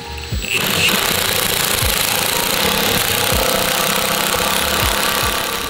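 Pneumatic impact wrench hammering steadily on a shaft of a transmission on the bench. It starts about half a second in and runs for about five seconds.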